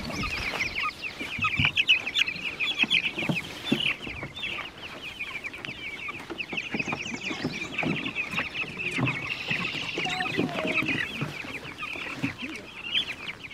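A batch of young Cornish cross meat chicks peeping constantly in rapid high chirps, with a few soft knocks mixed in.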